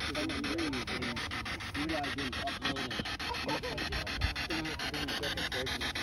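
Spirit box (ghost box radio) sweeping rapidly through radio stations: a steady rush of static chopped many times a second, with brief wavering snatches of broadcast sound. A single low thump about four seconds in.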